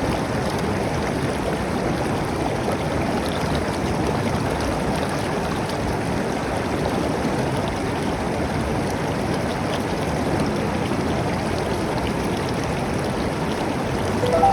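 River water flowing and rushing over stones, a steady, even rush with no change.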